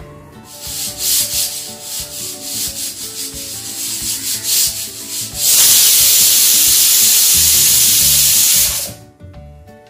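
Dry papery skin being rubbed and torn off shallots by hand. Quick crackling rustles come first, then a loud steady rasping rustle for about three seconds that stops suddenly near the end.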